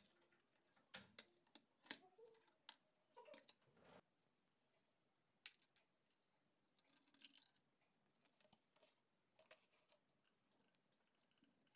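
Faint handling sounds on a table: scattered light clicks and taps of paper and a plastic tray being moved, and about seven seconds in a brief trickle of water poured from a small bottle into a plastic tray.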